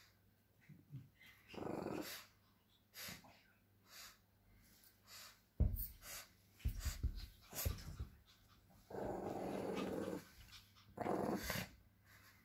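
Small dogs, a Lhasa Apso puppy among them, growling at each other in play: a string of short growls with pauses, the longest about a second long past the middle. A sharp knock and some rustling come about halfway through.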